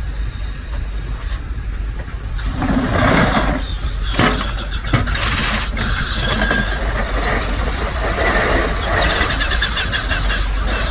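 Steam-powered excavator working: a steady low hum, then from about two and a half seconds in, louder irregular bursts of machinery noise with hissing.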